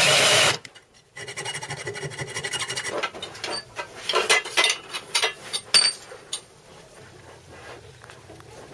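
Power drill with a twist bit boring through a steel bracket in a vise, stopping about half a second in. Then, from about three seconds in, a run of sharp metal clinks and clatter as hands sort through a box of metal tools and parts.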